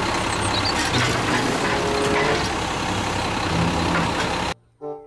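Automated side-loader garbage truck's engine running while its hydraulic arm whines, lifting a wheeled trash cart and tipping it into the hopper, with a few knocks from the cart and the falling trash. The sound cuts off suddenly near the end.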